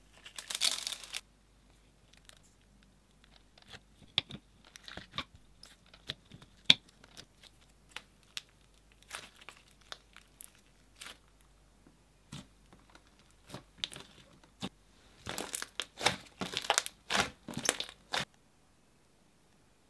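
Hands stretching and squeezing slime mixed with small clay toppings, giving crackling, tearing and popping sounds. A dense burst of crackling comes at the very start, scattered single pops follow, and a longer dense run of crackles comes about fifteen seconds in.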